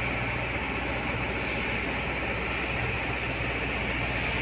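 Steady mechanical hum of running machinery, with an even low drone that does not change.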